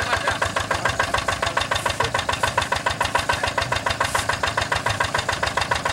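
Single-cylinder diesel engine of a two-wheel hand tractor idling, an even knocking beat of about eight strokes a second.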